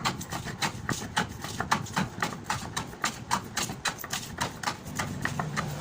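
A quick, somewhat uneven run of light, sharp clicks or taps, about four to five a second.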